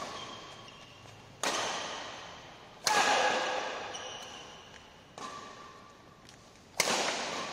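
Badminton rackets striking a shuttlecock in a rally, about five sharp smacks roughly one and a half to two seconds apart, each ringing out in the hall's echo. The strongest hits come about three seconds in and near the end.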